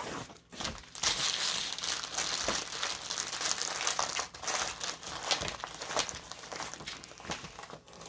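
Plastic packaging of a diamond-painting kit crinkling and rustling as it is handled, a dense crackle from about a second in until near the end.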